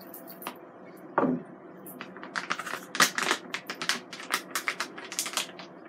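Kitchen handling noise: rapid, irregular clicks and crinkles as hands work a plastic bag of breading over plastic and steel bowls, with one louder bump about a second in.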